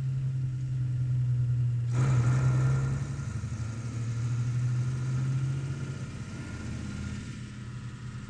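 Heavy military lorry engine running steadily, a low drone that dies away about six seconds in.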